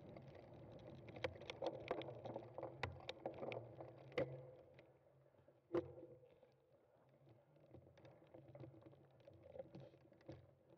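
Bicycle rattling over rough ground in a cyclocross race, with irregular sharp clicks and knocks, many in the first half and fewer later, over a low steady hum.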